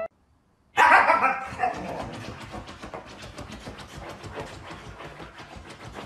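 Siberian husky gives one short, loud vocal call about a second in, then scratches and paws rapidly at a fabric couch cushion with its front paw.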